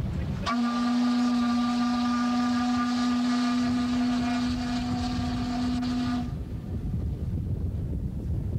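Steam whistle of the Minnehaha, a restored steam streetcar boat, blowing one long steady blast of about six seconds, starting about half a second in, with a breathy hiss under the tone. Wind rumbles on the microphone after it stops.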